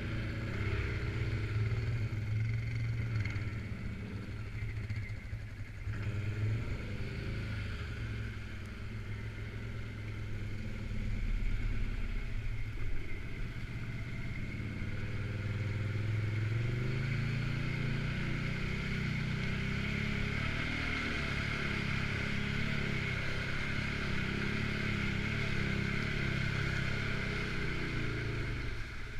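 Suzuki King Quad 750 AXI's single-cylinder engine running while riding, revving up and easing off several times.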